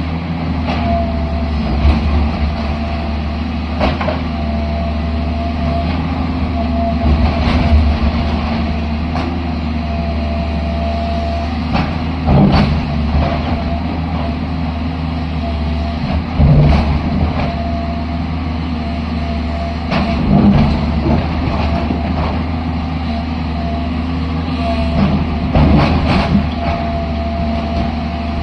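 JCB excavator's diesel engine running steadily under work, with a higher whine that comes and goes and sharp clanks at uneven intervals every few seconds.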